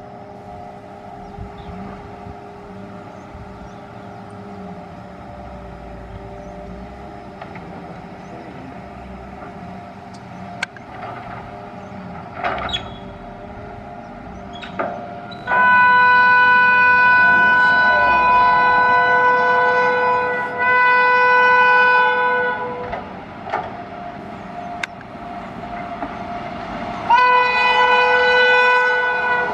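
Locomotive horn of an Indian Railways express train. For the first half there is a quieter steady train sound with a few short horn toots. About halfway through come long, loud horn blasts, one broken by a brief gap, and another long blast begins near the end.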